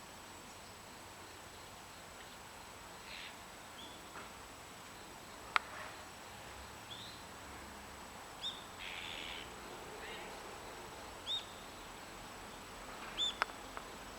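Azure-winged magpies calling while feeding: scattered short high chirps and a couple of brief harsh rasping calls, with two sharp ticks in the middle and near the end.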